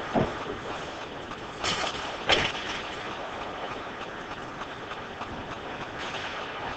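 Ice hockey play in a rink: a steady hiss of skates and arena noise, broken by sharp knocks of sticks and puck. There is one knock right at the start, then two close together about two seconds in, the second the loudest.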